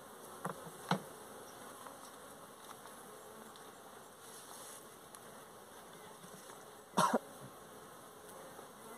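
Africanized honeybees buzzing faintly around an open hive. There are two light knocks about half a second and a second in as the wooden frames are handled, and a brief louder sound about seven seconds in.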